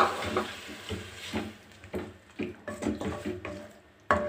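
A metal ladle stirring tamarind water into sautéed ivy gourd in a metal pot, knocking and scraping against the pot about twice a second. The loudest knocks come right at the start and again near the end.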